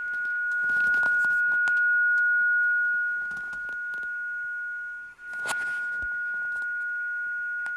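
Steady single-pitch beat tone from an HF transceiver's speaker, a received 7 MHz crystal oscillator carrier heard in LSB. It is louder in the first few seconds, then softer, with a brief dropout just after five seconds, and a few light clicks.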